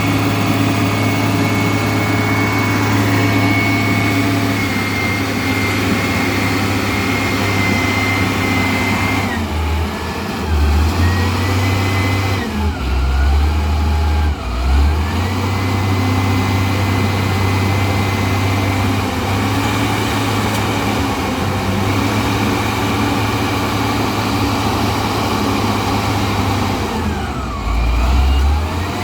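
Heavy diesel engine running steadily, its pitch and load dipping and recovering a few times, about ten seconds in and again near the end.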